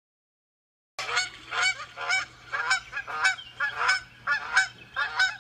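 Geese honking in a rapid series of about a dozen calls, two or three a second, starting about a second in and cutting off abruptly.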